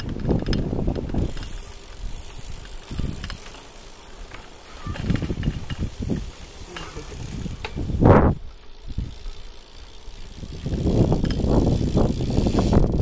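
BMX bicycles rolling along an asphalt road, with wind buffeting the microphone in gusts, loudest about eight seconds in and again near the end.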